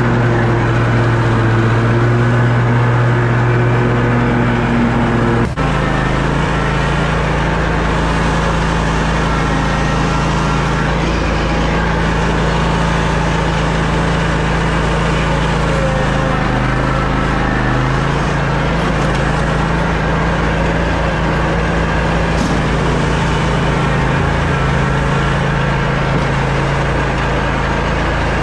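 Toro Grandstand stand-on mower's engine running steadily under the operator. It clicks and changes pitch suddenly about five and a half seconds in.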